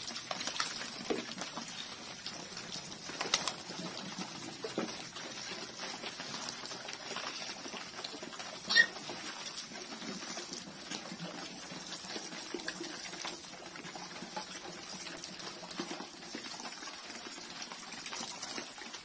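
Black village pigs crowding a trough, chewing and slurping wet feed with low grunts, while a hose sprays water over them. A brief, sharp, loud squeak about nine seconds in.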